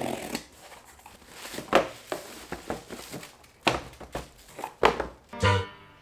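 Box cutter slicing the packing tape on a cardboard box, then cardboard being handled with scattered knocks and crinkles, over background music. Deep pitched music notes come in near the end.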